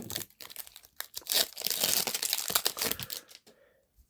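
Foil wrapper of a Pokémon booster pack crinkling as it is torn open and handled, a dense run of crackles that stops about three and a half seconds in.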